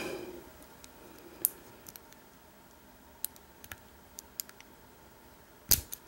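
Scattered small metal clicks and taps of lock picks being worked in and around the keyway of an American 1100 padlock, irregularly spaced, with a louder double click near the end.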